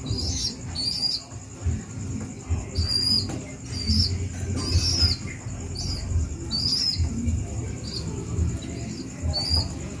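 A baby pigeon (squab) peeping in short, high squeaks about once or twice a second while flapping its wings, the begging display of a hungry young pigeon being hand-fed.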